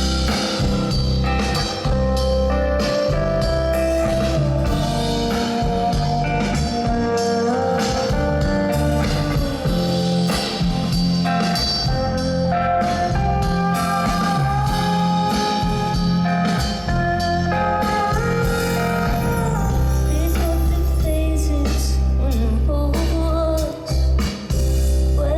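Live band playing an instrumental passage of an indie pop song with no singing: long held and sliding notes over a steady bass.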